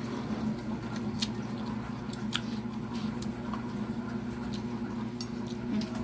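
Eating sounds: chewing and scattered small clicks of hands or utensils on a plate, over a steady low hum.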